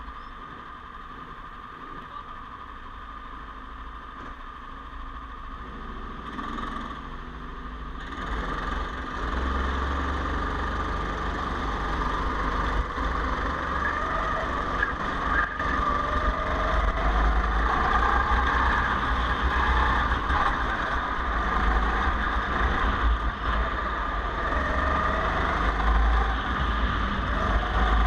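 Go-kart engines, heard from the driver's own kart: idling at first, then about eight seconds in the engine note climbs as the kart pulls away, rising and falling through the corners, with wind rumbling on the microphone.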